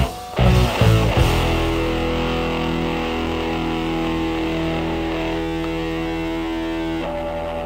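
Background rock music on electric guitar: a few quick chord hits in the first second or so, then one long held chord that slowly fades.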